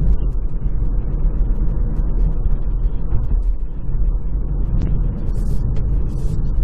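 Steady low road and tyre rumble heard inside the cabin of a 2019 Hyundai Kona Electric on the move, with no engine note.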